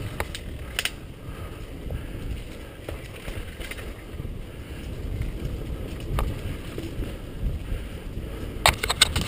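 Marin mountain bike riding fast over a dirt singletrack: wind rumbling on the microphone, with scattered clicks and rattles from the bike over the bumps and a quick run of sharp clacks near the end.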